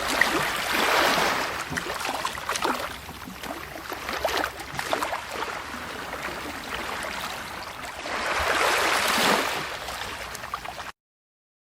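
Water lapping, small waves washing and splashing with little slaps and ticks, swelling a second in and again about eight seconds in. The sound cuts out abruptly near the end.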